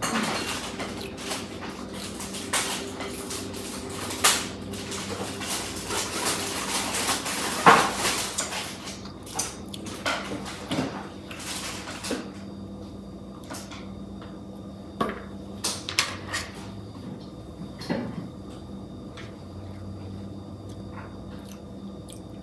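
A whisk scraping and tapping against a mixing bowl as chocolate cake batter is scraped out into a metal baking pan: a run of clinks and scrapes, dense at first and thinning out about halfway through.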